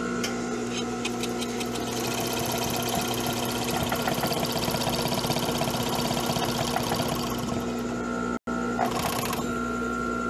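Four-thread overlock (serger) machine sewing over the raw edge of denim: a fast, even run of stitching from about two seconds in to about seven seconds, then a short second burst near the end, over a steady motor hum.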